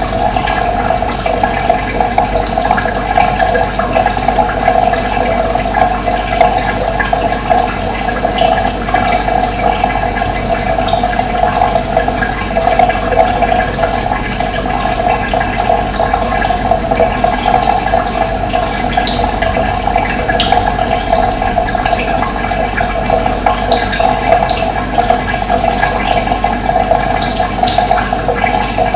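Running water flowing steadily, a dense rushing sound with scattered short high clicks over it.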